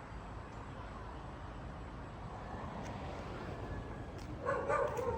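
Steady outdoor background noise with a low rumble, then a dog gives a short, high yelp near the end.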